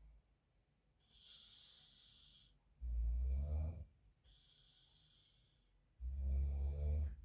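A sleeping man snoring: twice a soft, airy breath is followed by a loud, low snore lasting about a second, the second snore coming about three seconds after the first.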